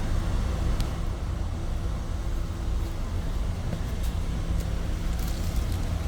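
Steady low rumble with a faint hum, the sound of running machinery, with a few faint clicks.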